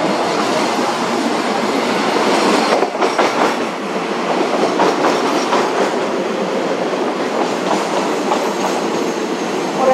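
Railway passenger carriages rolling past at close range as the train pulls into the station: a steady rumble of wheels on rail, with quick clacks from the rail joints from about a quarter of the way in.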